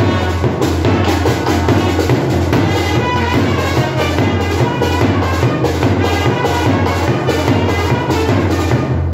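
A trumpet and a side drum beaten with two sticks, played together live as a band.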